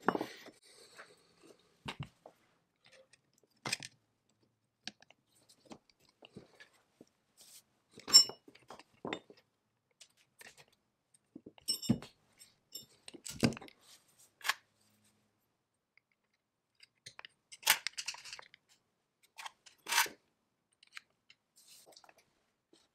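Hands handling and working small parts: scattered clicks, taps and short scrapes, with a few louder knocks about eight, twelve, thirteen and eighteen to twenty seconds in.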